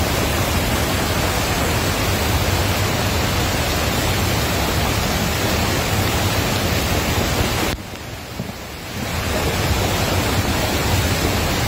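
Muddy flash-flood torrent rushing along a dirt road: a loud, steady wash of water noise that drops quieter for about a second around eight seconds in.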